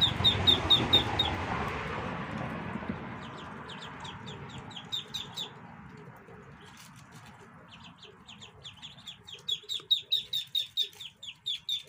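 Ducklings peeping: runs of short, high, downward-slurred calls, several a second, briefly at the start, again about four seconds in, and most densely over the last three seconds.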